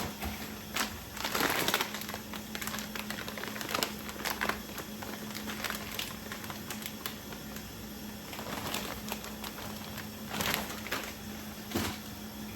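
Crinkling plastic wrappers and light clicks and knocks of food containers being handled, in scattered bursts, over a faint steady low hum.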